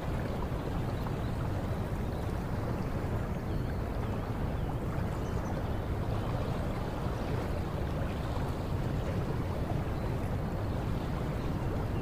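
Steady rush of water from a waterfall and stream, an even roar heaviest in the low range, with no breaks or rhythm.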